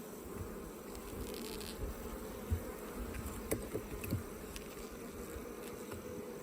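Honeybee colony buzzing steadily from an open hive during an inspection, with a few light clicks a couple of seconds in.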